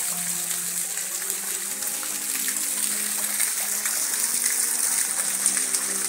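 A steady rush of water from a nearby waterfall or stream. Over it runs music with slow, held notes.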